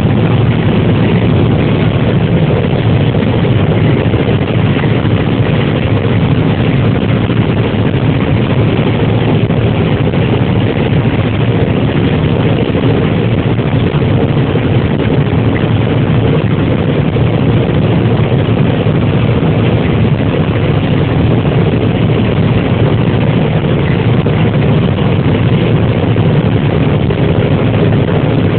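John Deere 9770 combine running steadily under load while harvesting corn, a constant loud engine and machinery drone heard from inside the cab.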